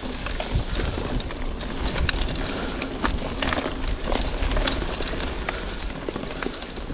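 Cube Stereo 150 Race full-suspension mountain bike ridden along a dirt forest trail: tyres running over the packed earth and twigs, with frequent clicks and rattles from the bike and a steady low rumble. A pigeon coos faintly in the background.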